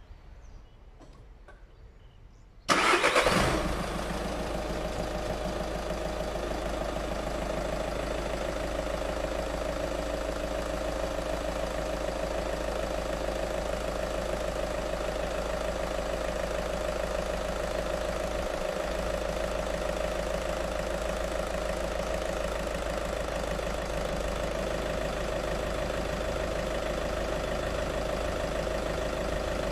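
Volkswagen Touran car engine started: a short burst of cranking and catching about three seconds in, a brief flare, then a steady idle with the air conditioning compressor running.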